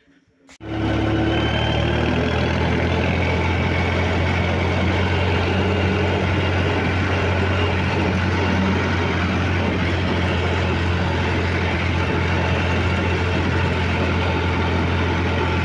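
Ford tractor's diesel engine running steadily under way, an even low drone with no change in pitch. It cuts in abruptly about half a second in.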